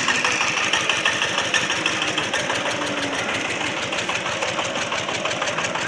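An engine running steadily at idle with a fast, even beat, with faint crowd voices behind it.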